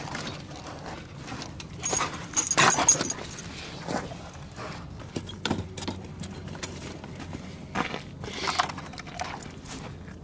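A dog scuffling around wooden pallets, with bursts of scratching and rustling that are loudest about two to three seconds in.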